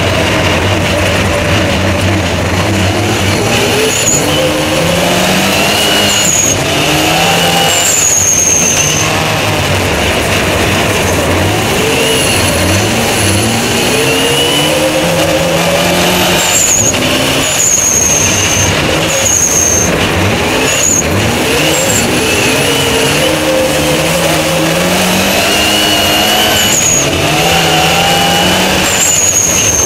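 Mitsubishi Lancer Evolution VII rally car's turbocharged four-cylinder engine driven hard on ice, revving up through the gears again and again, its pitch climbing then dropping at each shift. Short high-pitched whistles come and go on top.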